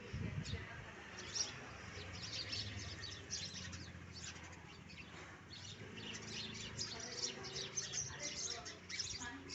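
House sparrows chirping: many short, overlapping chirps, growing busier in the second half.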